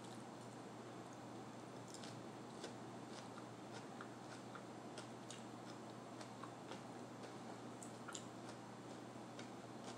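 Faint, irregular small clicks and squishes of a person chewing a mini sweet pepper topped with cream cheese and everything bagel seasoning, over a steady low hiss.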